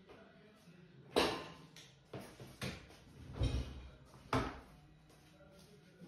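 Five or so sharp clacks and knocks of dishes and dishwasher racks being handled, the loudest about a second in and a duller thump midway.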